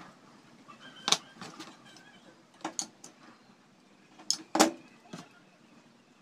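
A handful of sharp, separate clicks and taps, loudest about a second in and about four and a half seconds in, from small PVC sheet pieces and a snap-off cutter knife being handled and set down on a plastic cutting mat.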